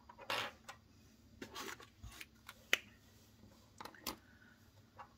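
Fountain pens being handled in a felt-lined pen tray: soft scattered rustles and taps as a pen is lifted out, with one sharp plastic click a little before the middle.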